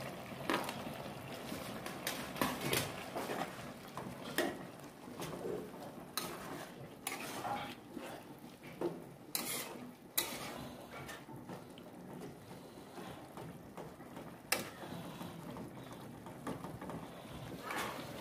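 Metal spoon and spatula scraping and clinking against a plate and a wok as diced potato is tipped into cooking chicken mince and stirred, with irregular clinks and knocks.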